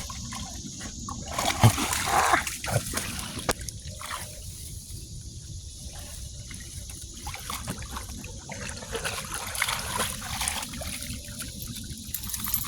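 Water trickling and splashing, with a few louder splashes in the first few seconds, then a steady trickle.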